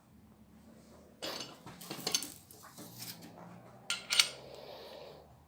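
Metal clinking and clanking of a valve spring compressor being worked on a small-block V8 cylinder head: a run of sharp clinks, with the loudest clank a little past four seconds in, over a faint steady low hum.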